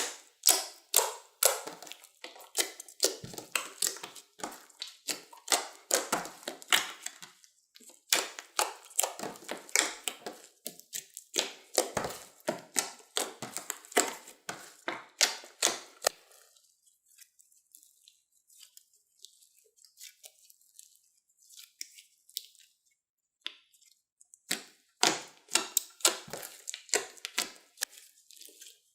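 Slime being squished and stretched by hand, giving a dense run of sticky clicks and pops. The clicks thin out a little past halfway and pick up again near the end.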